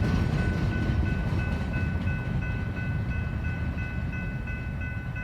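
Grade crossing warning bell ringing in quick, evenly repeated dings over the fading rumble of the train's last cars rolling past.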